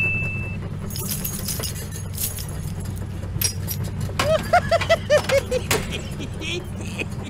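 Light clinking and rattling of a metal crane hook and plastic toy vehicles being handled, over a steady low hum. Partway through comes a quick run of about eight short squeaky chirps.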